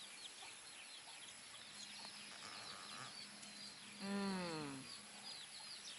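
Faint high chirping of birds, with one louder drawn-out call falling in pitch about four seconds in.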